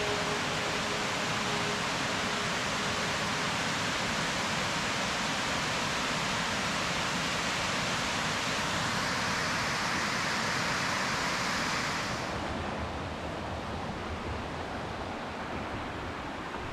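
Steady rushing of a river or falls, an even hiss of water. About twelve seconds in it becomes quieter and duller.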